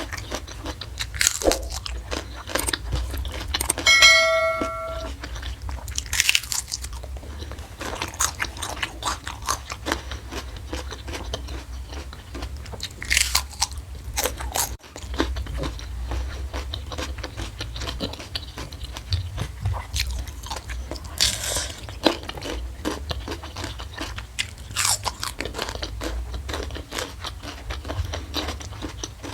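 Close-miked eating: crunchy bites and wet chewing of food, with a crisp bite every few seconds. About four seconds in, a brief ringing tone like a dish or utensil being struck.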